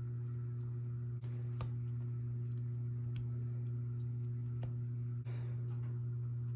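Steady low hum with a few faint, light clicks and taps scattered through it.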